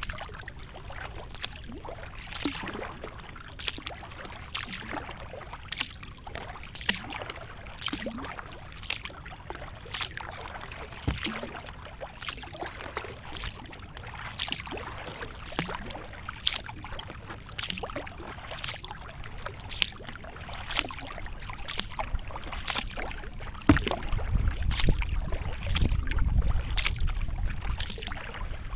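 Kayak paddle strokes in calm water, a short splash about once a second in a steady rhythm. A low rumble joins near the end.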